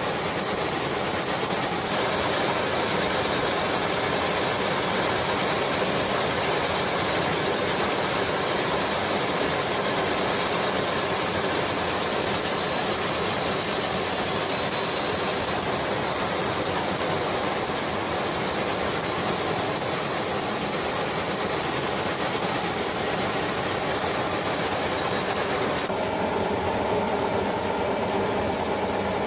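Steady loud rushing noise with a low rumble beneath it, unbroken throughout. A few faint steady tones join it near the end.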